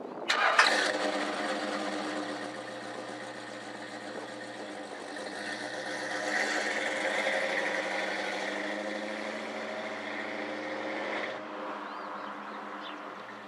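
Classic Dodge car's engine starting, catching with a sharp burst, then running steadily. It grows louder about halfway through as the car pulls away, and drops off abruptly near the end.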